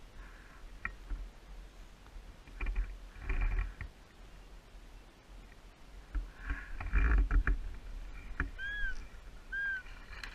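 Rustling and handling knocks as a rifle with a mounted camera is carried through long grass, in two spells, the louder one about seven seconds in. Near the end a bird gives two short, arched chirps.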